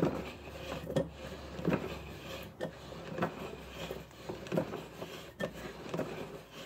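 Face vise screw cranked round by its metal handle bar, with irregular knocks and wooden rubbing about once a second as the handle turns and the vise chop moves.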